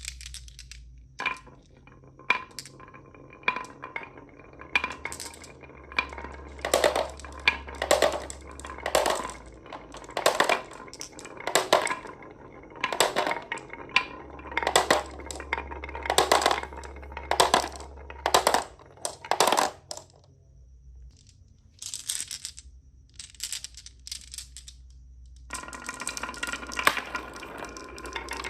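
Marbles clacking down a wooden HABA marble run: a long series of sharp clacks, then a short lull, then a denser rattling near the end.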